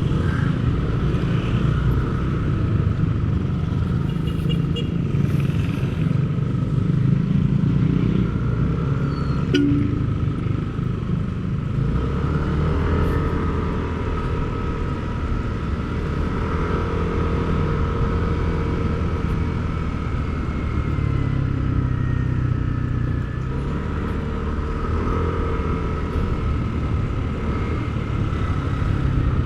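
Motor vehicle engines running, a continuous low rumble whose pitch and level shift slowly, with a thin steady high tone over it.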